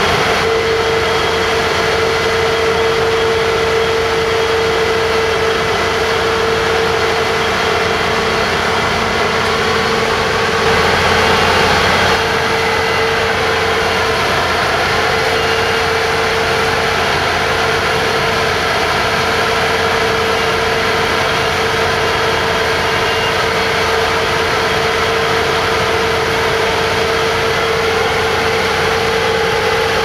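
Claas Lexion 760 combine harvester running steadily while unloading rice through its unloading auger: a constant engine and machinery drone with a steady hum-like tone, swelling slightly about eleven seconds in.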